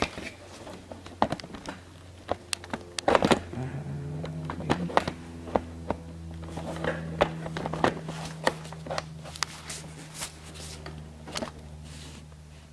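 Scattered clicks and knocks of a plastic car headlight housing being handled and set about on a wooden workbench, over a steady low electrical hum that thickens about three and a half seconds in.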